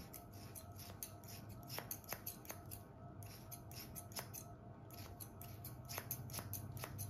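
Hair-cutting scissors snipping through a held section of long hair: many quick, light snips in an uneven run.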